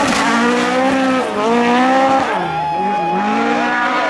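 Rally car engine revving hard at full throttle, its pitch climbing and falling with gear changes. The pitch drops sharply about two and a half seconds in as the driver lifts off, then picks up again.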